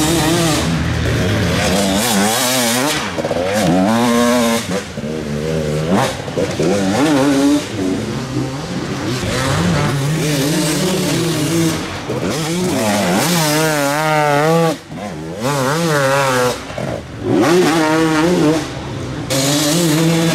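Enduro motorcycle engines revving hard, their pitch rising and falling again and again as the throttle is worked on and off.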